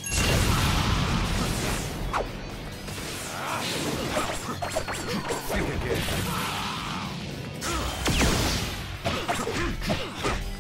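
Action fight-scene soundtrack: music under crashing impacts, hits and whooshes.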